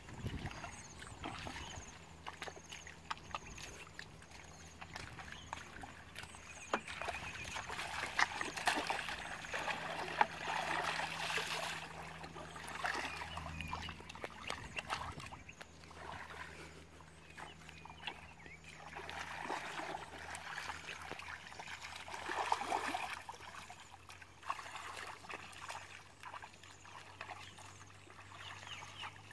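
Shallow muddy water splashing and sloshing in uneven spells as hands grope through the mud for fish, with scattered sharp clicks and slaps.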